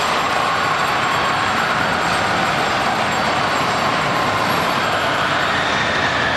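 Supersonic Odyssey steel roller coaster train running along its track: a steady roar of wheels on the steel rails, with a faint whine that slowly shifts in pitch.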